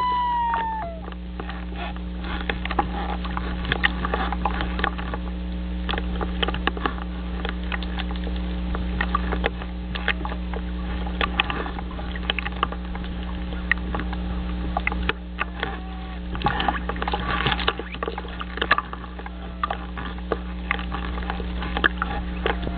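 A common loon's call ends under a second in. After it comes a steady electrical hum from the nest-cam microphone, with irregular ticking and crackling over it.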